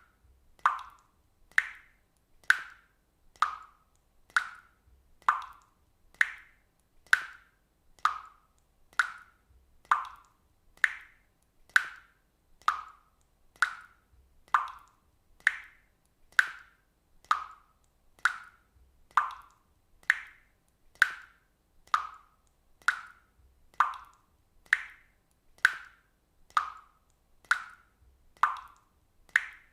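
Water drops falling into water one at a time, a short pitched plop a little more often than once a second in a steady, even rhythm.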